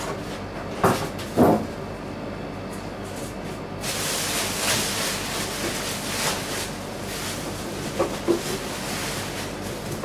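Packing being pulled from a cardboard box: two knocks about a second in as a foam insert is handled against the box, then plastic wrapping rustling and crinkling from about four seconds in as it is pulled out.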